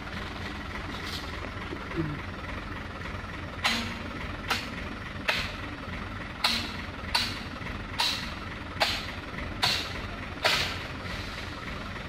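Hino dump truck's diesel engine running steadily at low revs as the truck creeps along. About a third of the way in, a series of about nine sharp knocks begins, spaced a little under a second apart; these are the loudest sounds.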